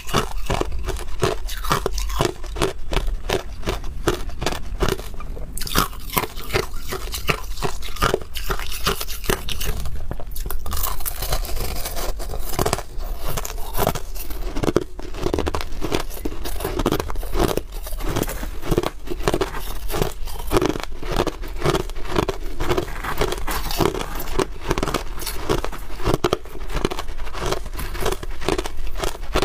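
Crushed ice being chewed, close to a lapel microphone: a rapid, unbroken run of crisp crunches.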